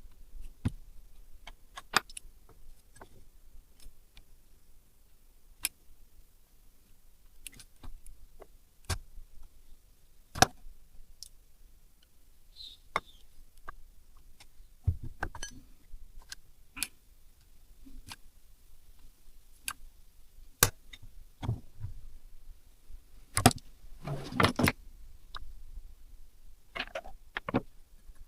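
Irregular sharp clicks and light metallic knocks of hand tools and small engine parts being handled, with a brief burst of rattling near the end.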